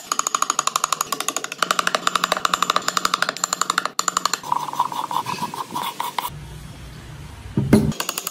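Power tool working wood with a fast, even chatter of about a dozen strokes a second, its pitch shifting as it cuts. It breaks off about six seconds in for a low hum. A short louder burst follows just before the end.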